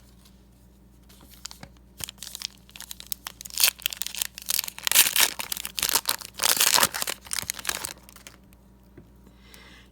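A foil trading-card pack wrapper being torn open and crinkled in the hands, a run of sharp crackling and tearing noises lasting about six seconds, loudest in the middle.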